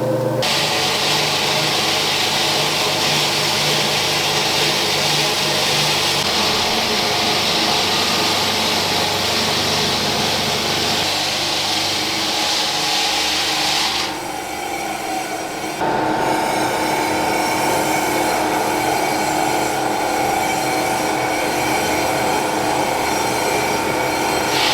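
Motorized slicer shredding banana tree stems: a steady, loud machine running with a cutting and rasping noise, changing abruptly about 14 and 16 seconds in.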